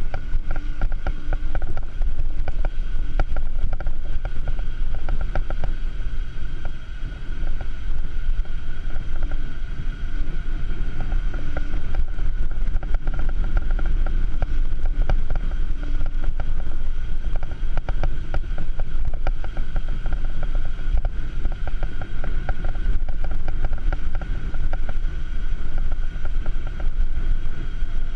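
Wind buffeting the camera microphone and tyre rumble from a bicycle rolling along an asphalt road, with a steady hum and light rattling ticks throughout.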